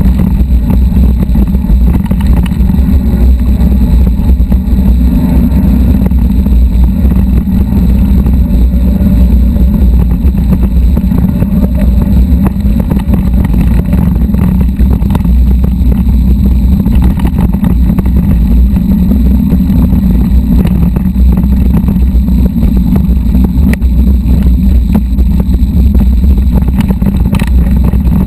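Loud, steady low rumble of an electric-assist mountain bike rolling over a rocky dirt trail, recorded close up on the handlebars, with frequent small jolts and rattles from the rough ground.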